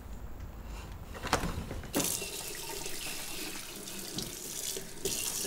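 Water running from a kitchen faucet into a sink, growing fuller about two seconds in, with a sharp click there.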